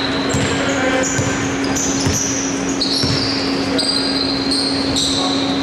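A basketball dribbled on a hardwood court, a few low bounces about a second apart, with high-pitched squeaks and a steady low hum throughout.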